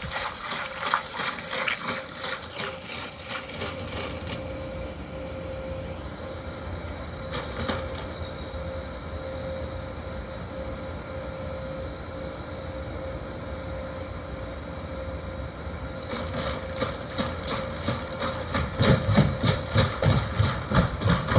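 Ghost Robotics quadruped robot walking, its motors giving a steady whine. Its feet splash through shallow water at first, then clatter in quick, louder steps near the end as it climbs onto the metal floor of its container shelter.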